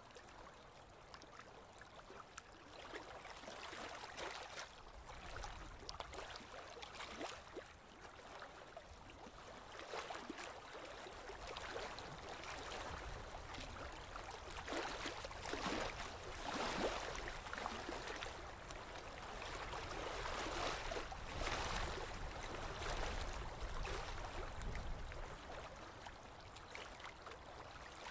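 Water splashing and rushing along the hull of a moving boat, in uneven swells that grow louder in the middle stretch, over a low rumble.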